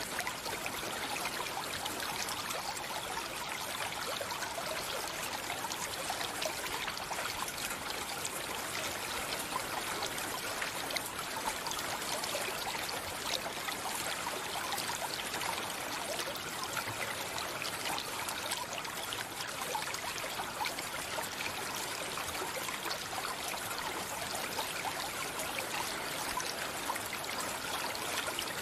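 Stream water running steadily, an even, unbroken rush and trickle.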